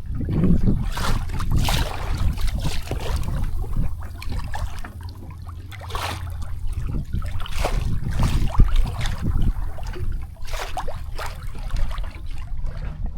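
Water lapping and splashing against the hull of a small San Juan 21 sailboat under sail, in irregular slaps every second or two, over a steady low rumble of wind on the microphone.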